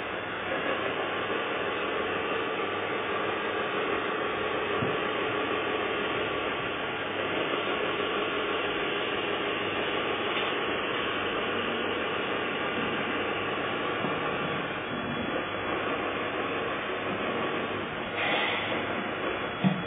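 Electric drive motors and gearboxes of a 1/14 scale RC wheel loader whirring steadily as it drives up onto a lowboy trailer, with a short knock near the end.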